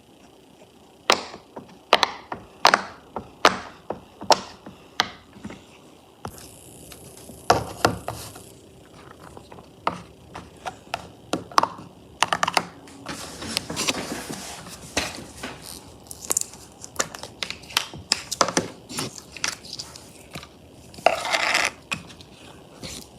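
Slime being worked by hand, giving a run of sharp clicks and pops at first. Later come longer crackling stretches, one near the middle and one near the end.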